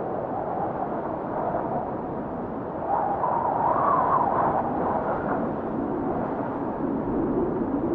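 Wind blowing steadily, gusting a little stronger with a rising whistle about three seconds in, then easing to a lower moan near the end.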